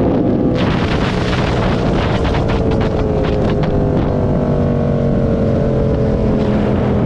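Motorcycle engine running while riding, under heavy wind rush on the microphone. The engine note sinks slowly a few seconds in as it slows, then picks up again near the end.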